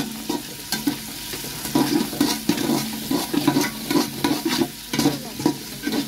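Sliced onions sizzling as they fry in oil in a metal pot, with a flat metal spatula stirring them in repeated scraping strokes against the pot's side and bottom.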